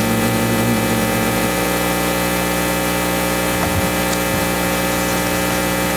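Steady electrical hum and buzz with many overtones in the church's sound system, unchanging throughout.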